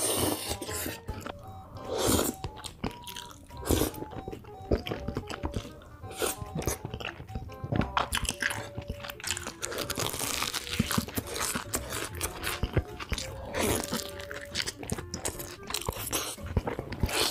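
Close-miked eating sounds: loud slurps of saucy tteokbokki noodles and crunchy bites and chewing of a sugar-coated corn dog, over background music with steady held notes.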